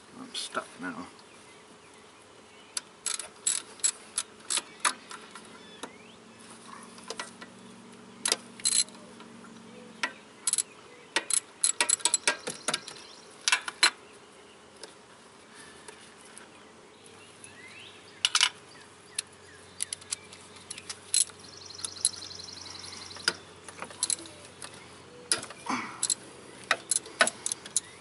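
Socket ratchet clicking and metal tools clinking in irregular bursts as the power steering pump's 12 mm mounting bolts are worked loose, with a short run of fast ratchet ticks about two-thirds of the way through.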